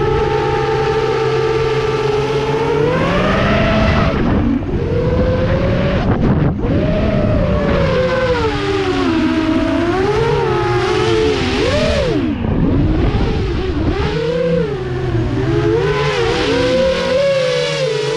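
FPV quadcopter motors whining, holding a steady pitch for about three seconds and then swooping up and down constantly as the throttle changes, with brief drops around four, six and twelve seconds in.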